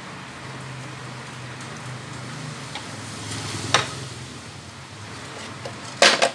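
Chopsticks scooping fried rice out of a steel wok over a steady hiss. A sharp clack comes a little past halfway, as the plate is set down, and loud metal clanks come near the end as the wok is lifted off the gas stove.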